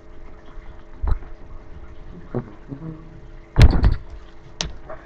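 Handling noise at a table: a few knocks and rustles, the loudest a short cluster about three and a half seconds in, over a faint steady hum.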